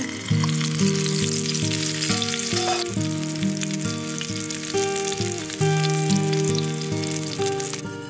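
Hamburger patty frying in hot fat in a small grill pan, a steady dense sizzle with fine crackles, over background music.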